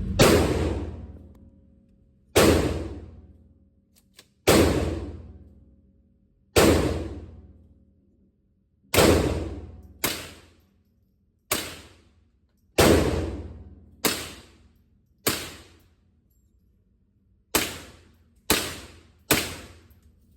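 About thirteen gunshots fired one at a time at an uneven pace, one to two seconds apart. Each shot is a sharp crack that rings out and dies away over about a second.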